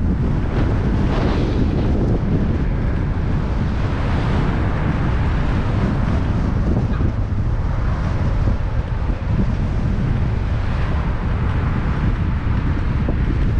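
Strong gusty wind buffeting the microphone while cycling, a constant loud low rumble.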